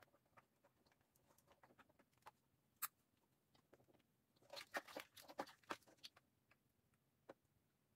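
Near silence broken by faint, light clicks and rattles of plastic wiring-harness plugs being handled at the back of a car stereo head unit, most of them in a short cluster about halfway through.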